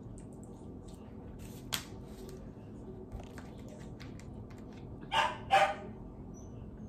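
A dog barks twice in quick succession, about five seconds in; a faint click comes earlier.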